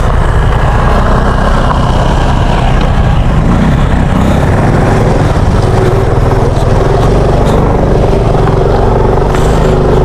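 Small motorcycle engine running steadily while being ridden, loud and close.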